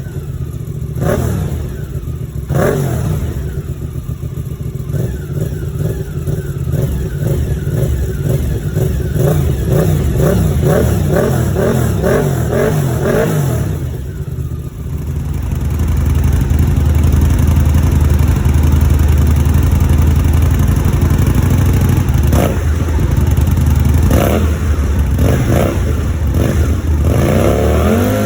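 1000 cc V-twin sport motorcycle engine being blipped, its pitch repeatedly rising and falling. About halfway through it settles into a louder, steadier low drone, with a few more quick revs near the end.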